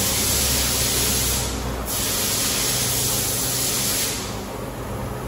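CNC lathe running with a constant low hum and a steady hiss over it; the hiss breaks off briefly about two seconds in and stops a little after four seconds.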